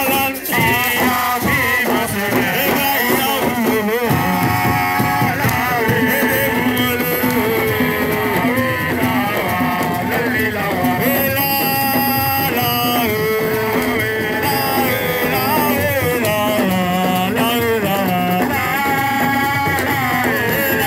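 Music with a singing voice over instruments and drums.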